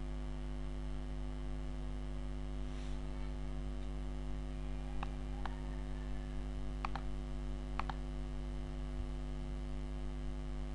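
Steady electrical mains hum picked up on the recording, with a few short computer-mouse clicks about halfway through.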